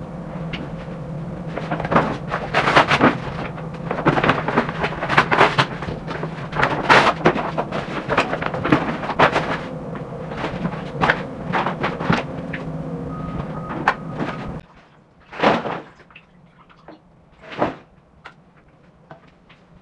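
Brown paper being handled and laid into a plastic storage box: irregular rustling, crackling and knocks over a steady low hum. About 15 seconds in the hum stops, and only a few short rustles follow.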